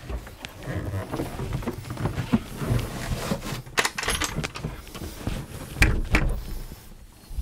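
Irregular handling knocks, rubbing and rustling from moving about in a boat's cramped engine compartment, with louder thumps about halfway through and again near the end.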